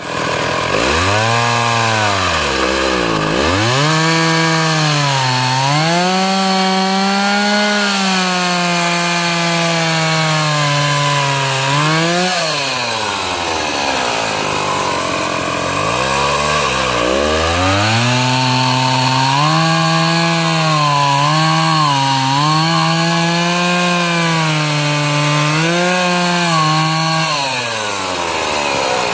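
Old Stihl 028 two-stroke chainsaw being revved up and down, dropping back to idle about three seconds in and again for a few seconds around the middle, and wavering while held at high revs. The owner thinks the way this saw runs means it is due for new clutch springs.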